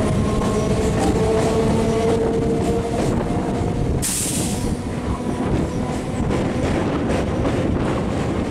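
Electric multiple unit (EMU) local train running at speed, heard from beside an open door: a steady rumble of wheels on rail with faint clicks, and a thin wheel squeal over the first three seconds. About four seconds in there is a brief rush of hiss as the coach passes into the steel bridge truss.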